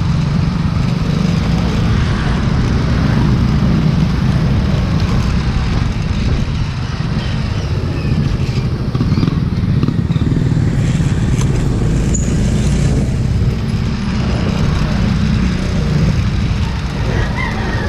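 Motorcycle engine running steadily at riding speed, heard from on the moving bike, with road and street-traffic noise around it.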